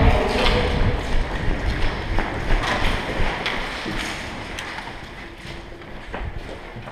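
Footsteps of a player walking and running, with gear and equipment knocking irregularly. The steps are busier at first and grow quieter after about four seconds.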